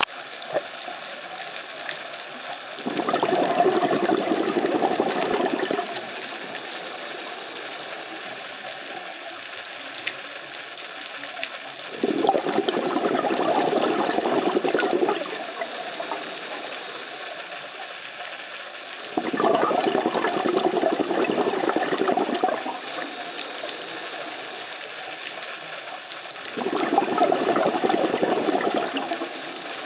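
Scuba diver breathing through a regulator: four bursts of exhaled bubbles, each about three seconds long and about seven seconds apart, with faint hissing inhalations in between.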